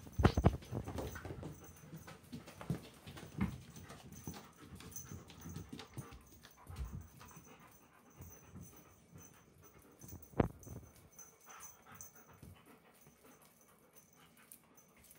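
A German Shepherd panting as it snaps at a cat teaser. There is a run of thumps and knocks over the first few seconds, then one sharp knock about ten seconds in, and the sounds thin out toward the end.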